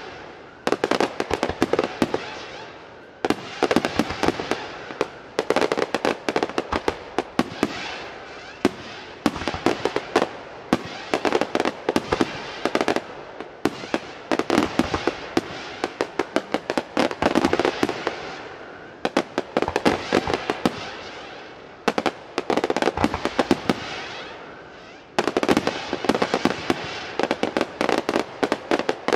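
Aerial fireworks display: shells bursting in rapid volleys with dense crackling, coming in waves of a few seconds separated by short lulls.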